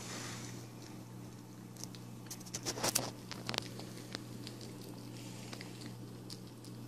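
Small Chihuahua–Yorkie mix puppy licking and chewing at a chunk of orange on a hardwood floor: a patter of small clicks and smacks, bunched about two and a half to three and a half seconds in, over a steady low hum.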